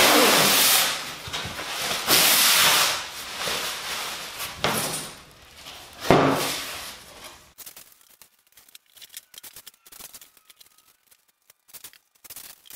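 Thin plastic vapor-barrier film being peeled off a Styrofoam rigid-foam insulation board: loud hissing rips, two long pulls in the first three seconds and shorter ones around five and six seconds, then faint crinkling of the loose film.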